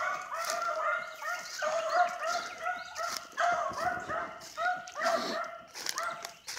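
Beagle hounds baying in a steady run of short, pitched bays, about three a second: the cry of beagles running a rabbit on scent.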